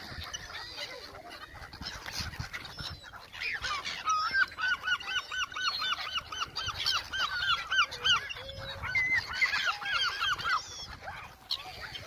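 A flock of black-headed gulls calling as they crowd in to be fed: a rapid string of short rising-and-falling calls, several a second, starting about three and a half seconds in and thinning out near the end.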